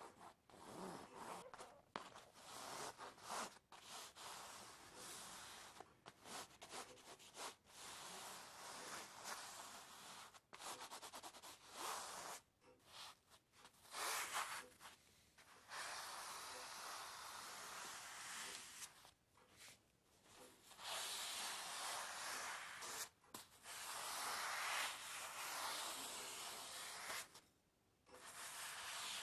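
Dry rubbing or scraping noise, coming in stretches of one to several seconds broken by short gaps, with longer unbroken stretches in the second half.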